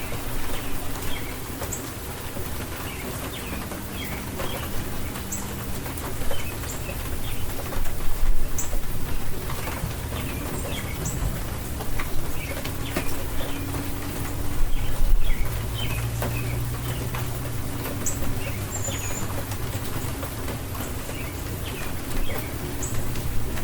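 Steady spring rain falling, with birds chirping and calling throughout in short, scattered notes.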